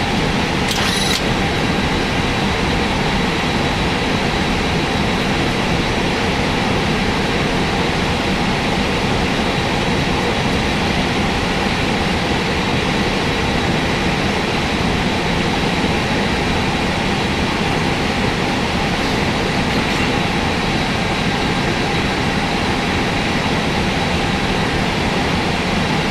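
Airbus A320 flight deck noise while the aircraft rolls along the runway: a steady roar of engines and airflow at an even level, with a faint high steady whine.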